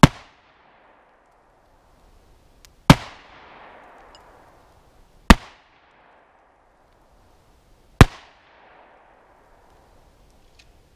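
Four shots from a Mossberg 500 pump-action 12-gauge shotgun firing 1-ounce rifled slugs, about two and a half to three seconds apart, each followed by a brief echo.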